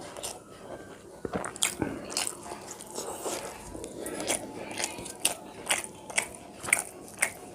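Close-up eating sounds: a person chewing and crunching mouthfuls, with sharp wet mouth clicks at irregular intervals.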